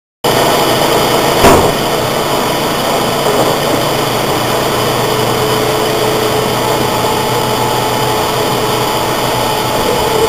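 Loud, steady hiss and hum, like a running fan or motor, with faint steady tones in it. A single sharp knock comes about a second and a half in.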